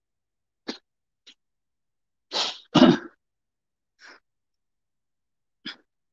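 A person sneezing once about two and a half seconds in: a short noisy build-up, then a louder sharp burst. A few short faint sounds come before and after it.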